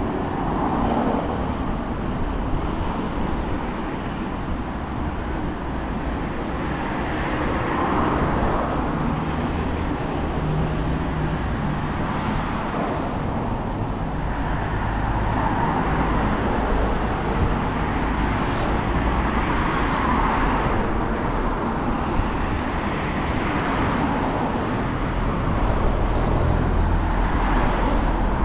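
Steady road traffic: a continuous hum and rumble with several cars passing in turn, each swelling and fading over a few seconds.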